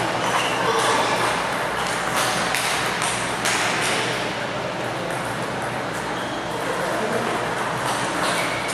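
Table tennis balls clicking off tables and bats in scattered, irregular pings, over the steady hubbub of a large hall.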